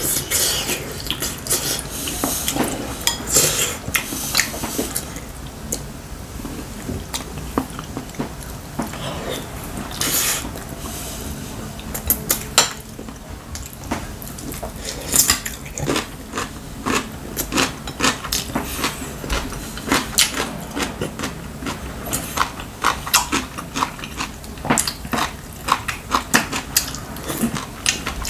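Chopsticks and a spoon clicking and tapping against bowls and a stew pot while eating, with mouth noises of eating in between. The quick clicks come thicker in the second half.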